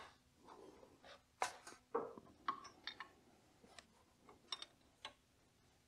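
Metal wrench clicking and tapping on a diesel fuel-injector hard-line nut as the line is loosened: one sharp click at the start, then several fainter, irregular taps.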